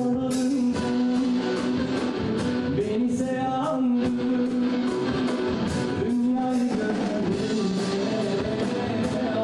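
A band playing a song: a male lead vocal singing long held notes over guitar accompaniment.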